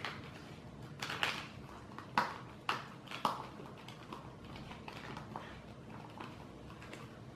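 Plastic waterproof phone pouch being handled and worked open by hand: a run of sharp crinkles and clicks, loudest in the first few seconds and thinning out toward the end.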